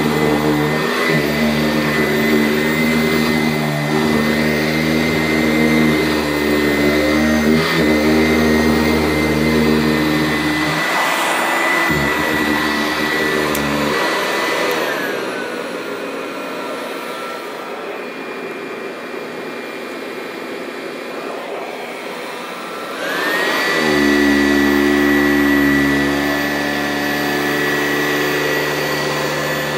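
Sanitaire SC889A upright commercial vacuum running with a steady high motor whine and lower hum. About halfway through, the whine glides down in pitch and the hum fades for several seconds, then both come back up near the end; a few short knocks sound in the first half.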